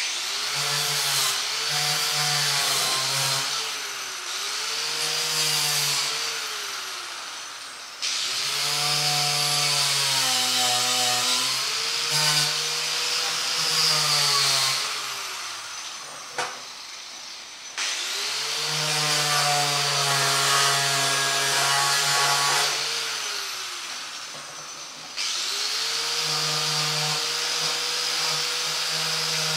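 A corded handheld power tool runs in four bursts of several seconds each, starting suddenly and stopping, its motor pitch wavering as it is pressed against the metal ammo box, with a strong hiss over the top.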